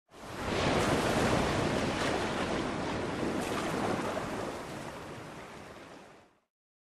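Sea surf rushing, a steady wash of waves that swells up within the first second and slowly fades out, stopping just after six seconds.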